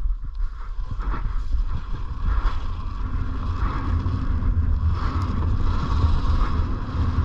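Dirt bike engine running steadily at low revs, with a deep rumble, as the bike sits bogged after losing traction in soft ground.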